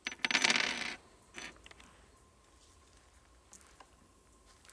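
Spent .38 Special brass cases jingling together as they are pushed out of a Smith & Wesson Model 10 revolver's cylinder, a dense metallic clatter lasting under a second, followed by a shorter rattle and a few light clicks.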